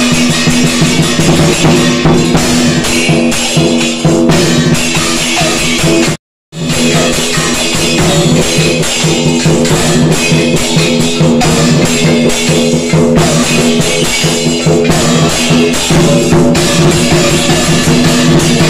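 Loud music driven by heavy drumming, with sustained ringing tones underneath; it drops out completely for a split second about six seconds in.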